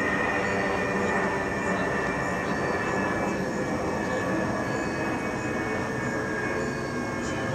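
Steady rumble of a passing vehicle, with a high whine that slowly drops in pitch.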